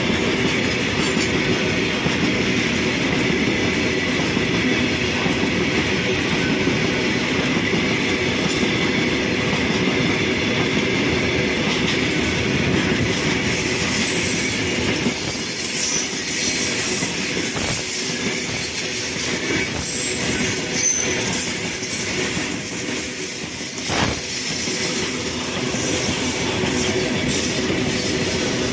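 Goods train of petroleum tank wagons rolling past, a steady rumble and rattle of wheels on rail. From about halfway through, a thin high wheel squeal joins it, with a few louder knocks in the second half.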